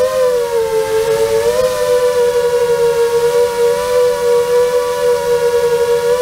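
FPV quadcopter's brushless motors and propellers whining, the pitch dipping briefly with throttle about half a second in, climbing back a second later, then holding steady.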